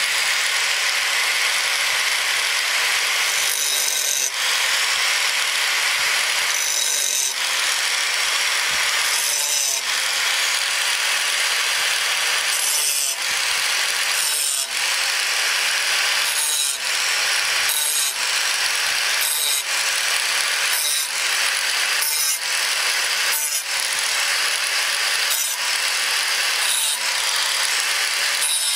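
Electric angle grinder running with a small abrasive disc, cutting serration notches into the curved edge of a plough-disc steel blade. The grinding noise is steady, broken by repeated short cuts about every second or two, which come faster in the second half.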